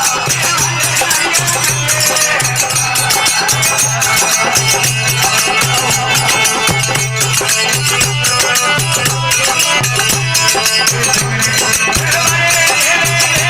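Desi bhajan, devotional folk music, with a steady repeating beat and dense clicking percussion.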